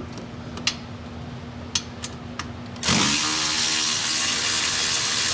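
A few sharp metallic clicks, then a cordless power tool spins up about three seconds in and runs steadily, backing out a screw from the mower's hydraulic fan plate.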